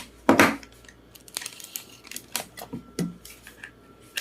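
Parts of an airbrush kit being handled and fitted together: a loud short scrape or rustle about a third of a second in, then scattered sharp clicks and light knocks.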